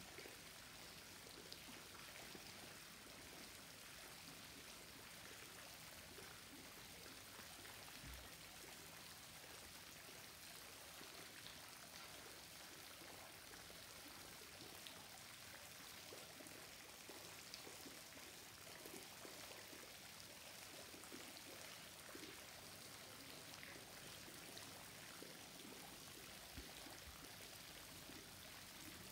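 Near silence: a faint, steady, even hiss with scattered soft ticks, no clear single source.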